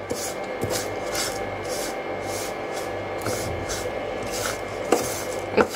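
Wooden spatula stirring and scraping seeds and desiccated coconut around a dry pan, a rhythmic rasping at about two strokes a second, as the spices are dry-roasted.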